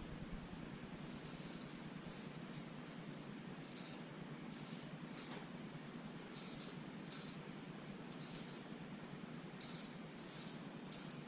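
Short scratchy strokes of a wet shave over facial stubble, about fifteen brief strokes at an uneven pace, one or two a second.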